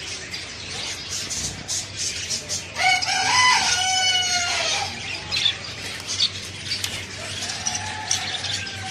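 A rooster crows once, about three seconds in, one pitched call lasting about two seconds, over a steady background of many short bird chirps.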